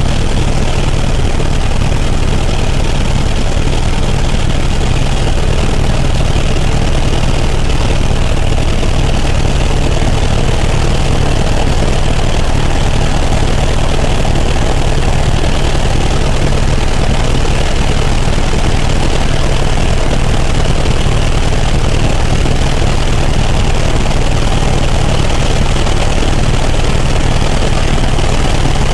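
Helicopter in flight: steady, loud engine and rotor noise with a strong low drone, unchanging throughout.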